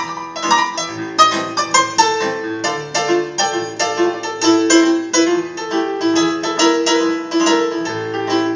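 Live band playing an instrumental break between sung verses: a quick run of separate melody notes over sustained lower notes, with no singing.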